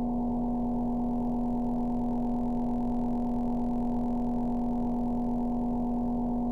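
Creepy sound-effect drone: a steady low hum with one strong tone and several fainter ones above it, over a rough rumble, unchanging throughout.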